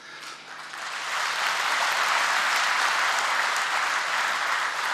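A large audience applauding, swelling over the first second and then holding steady.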